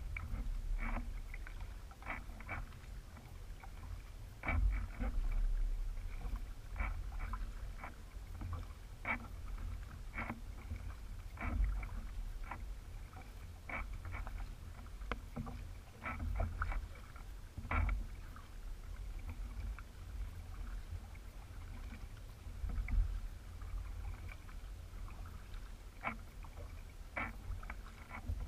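Hobie Revolution 16 kayak under way on the water: irregular light clicks and knocks, about one every second or two, over a steady low rumble.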